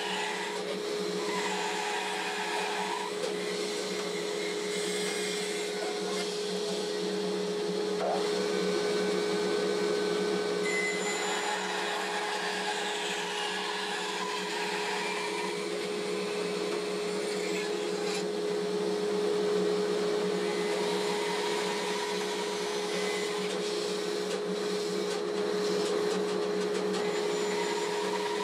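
Bandsaw running with a steady hum while its blade cuts through a wooden block fed along the fence. The cutting sound comes and goes over the hum as the wood is pushed through.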